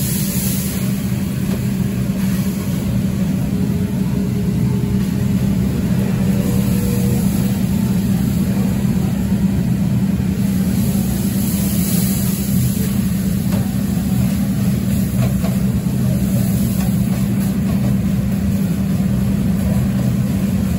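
Steady low mechanical hum of kitchen machinery, with a faint sizzle from flatbread laid on the oiled tantuni griddle near the start and again about twelve seconds in.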